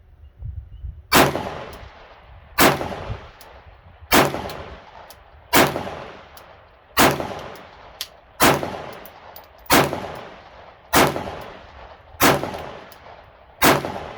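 A Glock 19 Gen 5 9mm pistol fired slow and steady, ten shots about a second and a half apart. It is a new gun being broken in and cycles without a malfunction.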